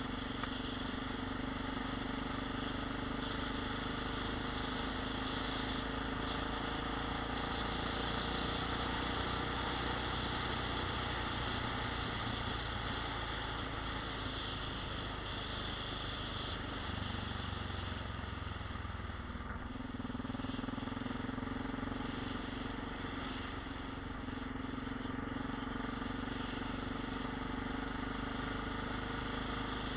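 Vehicle engine running steadily at road speed. A little past the middle its note drops lower for a few seconds, then comes back up.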